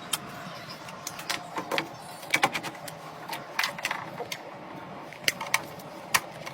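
Computer hardware being handled and fitted together: irregular sharp plastic and metal clicks and light knocks, about fifteen scattered over several seconds.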